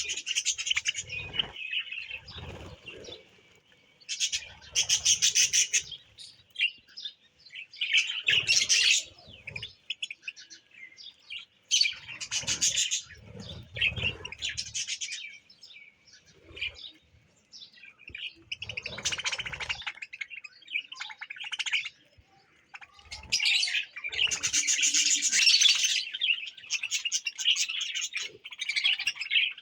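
Birds chirping and calling in repeated bursts of a second or two, with short pauses between and some low thumps under several of the bursts.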